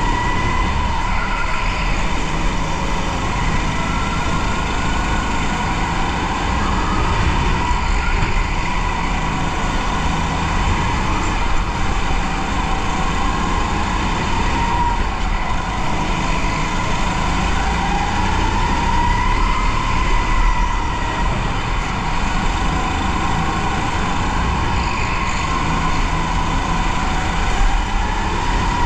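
A racing go-kart heard from on board, driven at race pace: a steady whine that rises and falls slowly in pitch with speed through the corners, over a constant low rumble.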